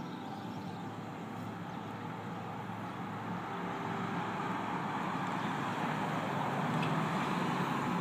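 Road traffic: a car and a truck drive past on the street, the noise swelling from about halfway through. In the first couple of seconds the last ringing tones of church bells fade away beneath it.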